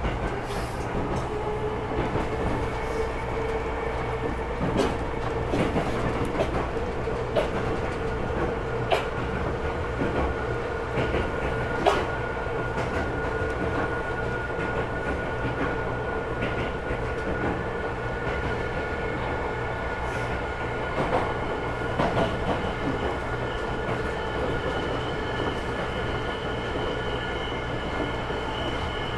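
Tokyo Metro Chiyoda Line subway train running between stations, heard from inside the passenger car. A steady rumble carries a steady whining tone, with a few sharp clicks of the wheels over the rails.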